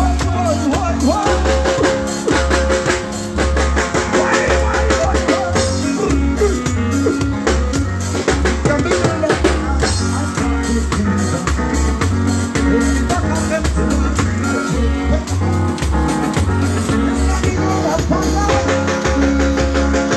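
Jamaican nine-night band playing live with a drum kit and bass guitar, a steady beat of drum hits over a repeating bass line, with a held note coming in at times.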